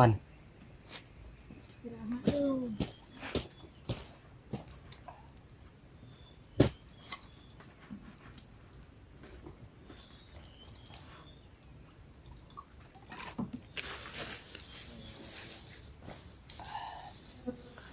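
Insects droning steadily on one high, even pitch. A few scattered clicks and knocks break in, the sharpest about 7 seconds in.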